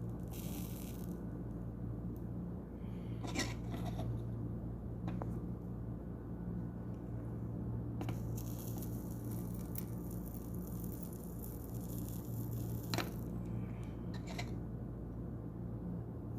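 Hand soldering on a circuit board: a few light clicks and scrapes of the tools against the board, with a couple of brief hissy stretches, over a steady low hum.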